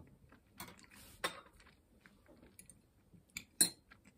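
Quiet eating sounds: a handful of scattered clicks and light taps while a pickled quail egg is taken from its jar and eaten, the sharpest about three and a half seconds in.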